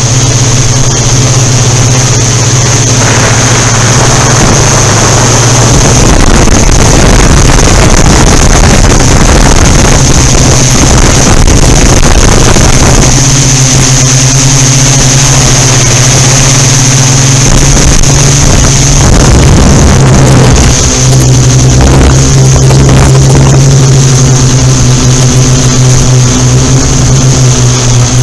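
Yuneec Typhoon Q500 4K quadcopter in flight: its spinning propellers and motors give a steady loud drone with a high whine above it. Wind buffets the drone's unshielded camera microphone in heavy gusts through much of the first half and again about two-thirds of the way in.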